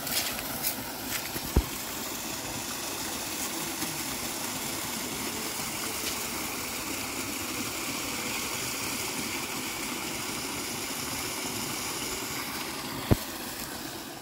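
Small waterfall splashing steadily into a pool as water pours over an earth bank. A sharp knock comes about a second and a half in, and another near the end.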